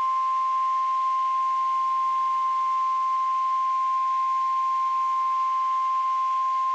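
Weather-radio warning alarm tone: a single steady beep near 1050 Hz, held unbroken over faint radio hiss, which signals that an emergency warning message follows.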